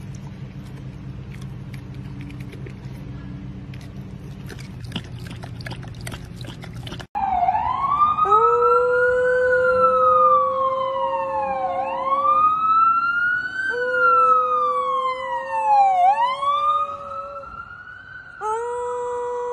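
About seven seconds in, after a quiet stretch, an emergency vehicle's siren wails loudly, rising and falling in slow sweeps, while a dog howls along in long held notes that break off and start again.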